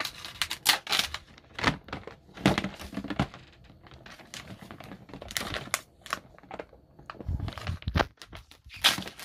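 Paper packaging wrap being torn and crumpled off a plastic toy case, in irregular bursts, with a couple of dull knocks near the end.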